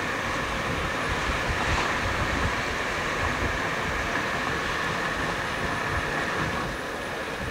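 Steady road and engine noise of a moving car, heard from inside the cabin: a continuous low rumble with a faint high hum over it.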